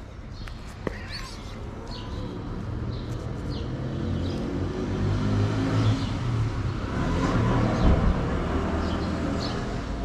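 A motor vehicle's engine running nearby: it grows louder over several seconds, then fades near the end. Small birds chirp over it.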